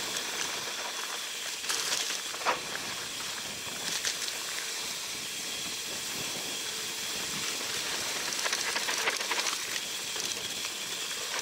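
Mountain bike riding on a dirt singletrack: a steady hiss of tyres and wind noise, broken by a few sharp rattles from the bike over bumps, the loudest about two and a half seconds in.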